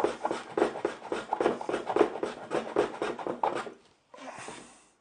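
Quick, even scraping strokes of a hand tool or wood rubbing on wood, about four a second. They stop a little before the end, and a soft steady hiss follows.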